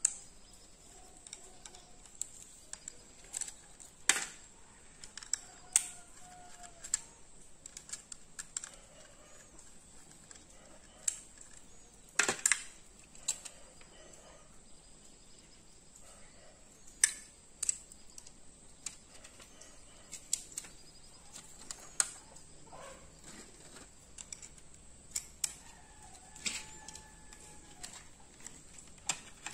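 Irregular sharp clicks and light metal taps of a 2.5-inch laptop hard drive and a small screwdriver being handled, with a few faint short squeaks.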